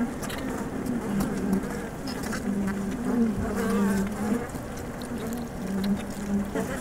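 A flying insect buzzing, its low wing hum wavering in pitch and fading in and out as it moves about.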